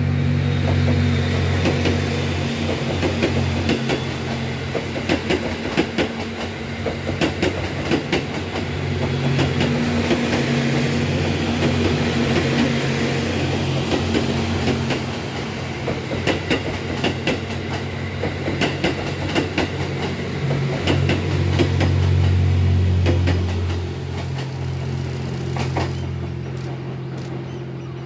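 Diesel train running past, its wheels clicking over the rail joints over a steady low engine drone that swells and eases as the cars go by.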